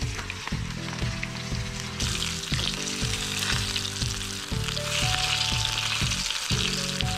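Floured squirrel pieces deep-frying in hot grease in a cast iron skillet, sizzling steadily and getting louder about two seconds in. Background music with a steady beat plays underneath.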